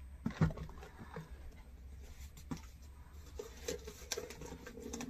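Hands scratching, tapping and handling a tightly sealed shipping box while trying to open it: scattered small scrapes and clicks, with one sharper knock about half a second in.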